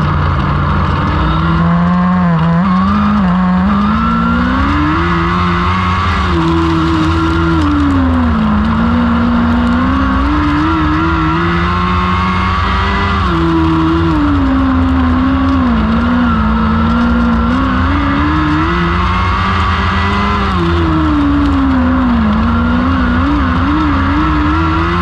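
Lightning sprint car's 1000cc motorcycle engine at racing speed on a dirt oval, revving up on the straights and backing off into the turns: its pitch rises and falls about every seven seconds, lap after lap.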